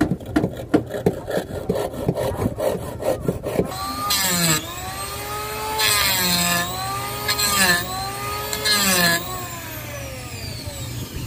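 Hand saw cutting a wooden plank in quick, even strokes, about four a second. About four seconds in, an electric hand planer takes over: its motor whine dips under load through four cutting passes over the board and recovers between them, then falls away as the motor winds down near the end.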